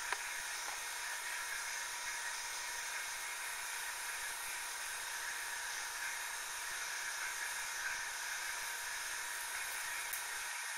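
Steady, even hiss with no other sound: the recording's own background noise.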